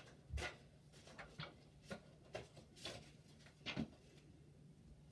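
Faint, short soft taps and swishes, roughly one every half second, of notepad sheets flicked and thrown like playing cards.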